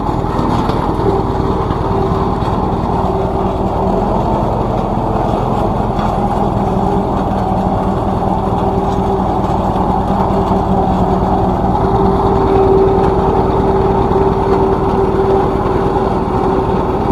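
Engine of a tandem road roller running steadily, with a constant hum that swells slightly about three-quarters of the way through.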